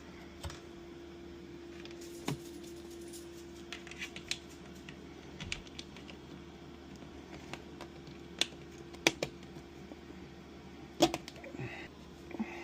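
Scattered light clicks and taps of a speaker and parts being handled and fitted into a boombox case, with a few sharper knocks near the end, over a steady low hum.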